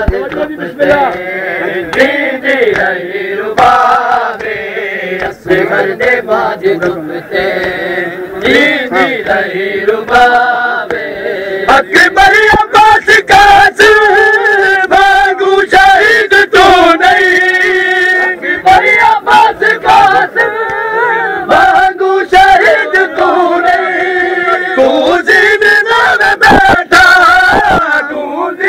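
A crowd of men chanting a noha, a Shia mourning lament for Muharram, together in a loud sung chant, with frequent sharp slaps of chest-beating (matam) cutting through it.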